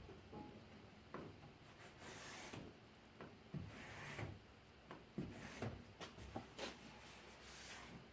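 Rubber lock strip being worked into a window gasket: faint rubbing and scraping of rubber, with scattered light knocks.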